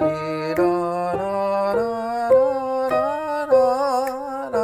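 A man singing a slow melody in even notes, about two a second, stepping mostly upward with vibrato on the later, held notes, and a piano struck along with it.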